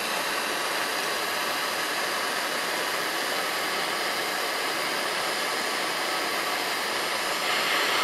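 Hand-held gas torch with a brass pencil-flame head burning with a steady hiss as its flame heats a copper ring terminal for soldering. The hiss grows slightly louder near the end.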